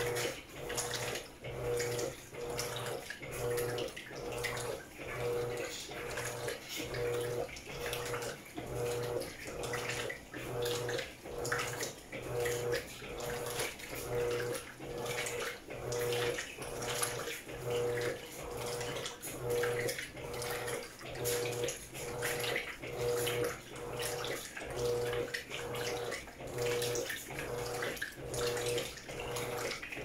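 Electrolux top-loading washing machine in its wash agitation, churning a heavy king-size blanket in a drum filled to the extra-high water level. The motor hum pulses in even strokes about once a second, with water sloshing throughout.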